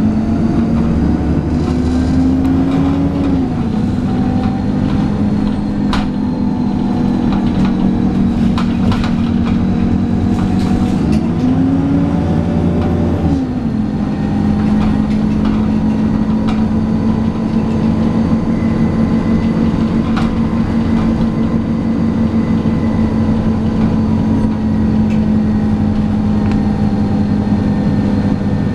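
Alexander Dennis Enviro400 double-decker bus heard from inside while driving: the engine and driveline drone, its pitch rising and dropping twice, then holding steady. Sharp clicks and rattles from the bus interior come through in the first half.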